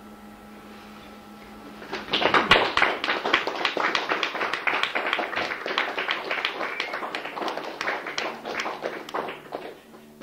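Pocket cassette recording: steady tape hiss with a faint hum, then about two seconds in a small audience breaks into applause, which thins out and dies away near the end.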